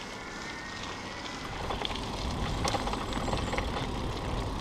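E-bike rolling over a rough, narrow dirt towpath: a steady low rumble of tyres that grows louder about a second and a half in, with scattered light clicks and rattles from the bike.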